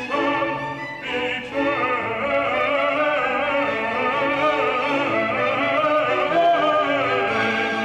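Classical music: a solo voice singing with wide vibrato over orchestral accompaniment.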